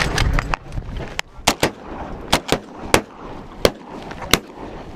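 A ragged volley of shotgun blasts from several hunters firing at an incoming flock of geese, about a dozen shots in quick, uneven succession, the loudest in the second half.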